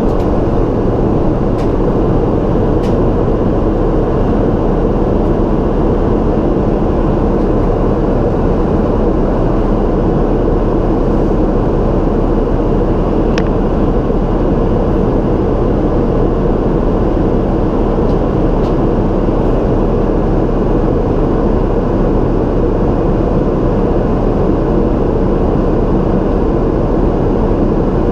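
Steady cabin noise of a Boeing 777-200LR in flight: the deep, even rumble of its GE90 turbofan engines and the rush of air past the fuselage, heard from a window seat.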